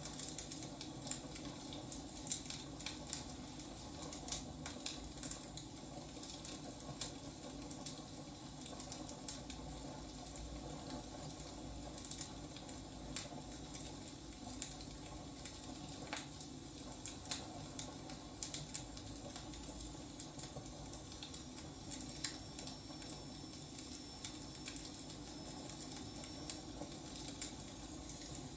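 Wood fire burning, with a steady low hiss and frequent irregular crackles and pops from the burning logs.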